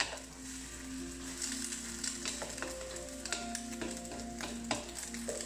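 Beaten eggs sizzling in hot oil in a wok while a wooden spatula stirs and turns them. Several sharp scrapes and taps of the spatula against the pan sound over the steady sizzle.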